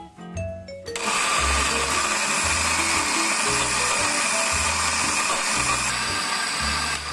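Countertop blender motor running steadily, grinding chillies, spices and coconut milk into a smooth paste. It starts abruptly about a second in and cuts off just before the end.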